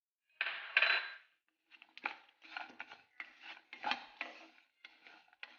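Wooden spatula scraping and pushing lumps of jaggery around a non-stick kadhai as they melt in ghee. It starts with one longer, louder scrape about half a second in, then goes on in quick repeated strokes.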